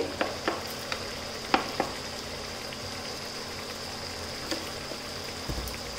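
Onion-tomato masala frying in oil in a metal kadhai with a steady sizzle, being fried until the oil separates. A few light clicks of the slotted spatula and a spoon against the pan come through it.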